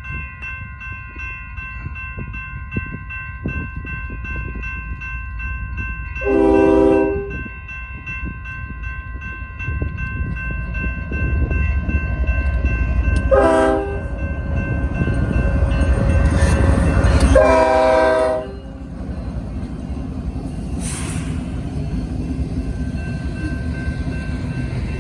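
Powder River coal train at a grade crossing: the crossing bell rings steadily while the locomotive horn sounds three blasts, two short ones several seconds apart and then a longer one. The low rumble of the train builds up to the last blast, then settles into the steady run of the passing cars.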